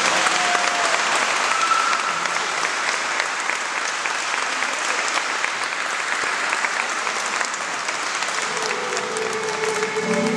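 Wedding guests applauding, a dense, steady clapping. Near the end, soft instrumental music comes in beneath the applause.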